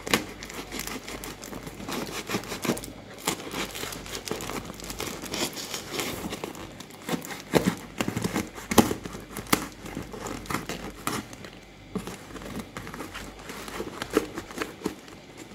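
A plastic mailing bag and taped wrapping on a parcel crinkling as hands handle it and pick at it to get it open, with many irregular sharp crackles.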